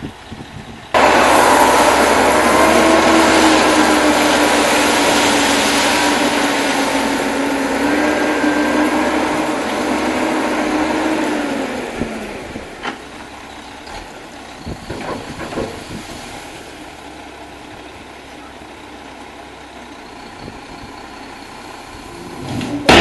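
Gravel delivery truck with its engine running hard and a loud rushing noise that starts abruptly about a second in and dies away after about twelve seconds, leaving a quieter engine idle.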